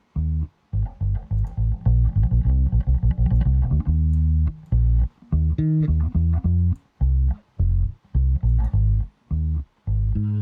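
Solo electric bass guitar track playing a choppy line of short, detached notes with brief silences between them, played back through a compressor plugin set to a bass preset.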